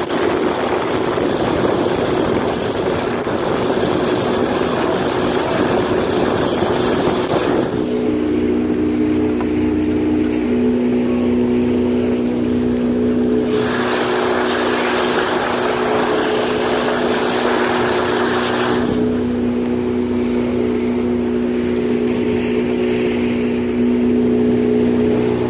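Motorboat engine running steadily under way, a steady hum with a few held tones. A loud rushing of wind and water spray swells over it for the first several seconds and again for several seconds in the middle.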